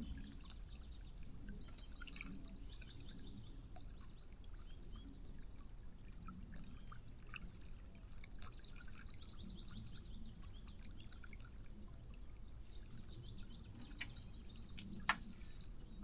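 Steady high-pitched chorus of insects. Scattered faint ticks run through it, with one sharp click near the end.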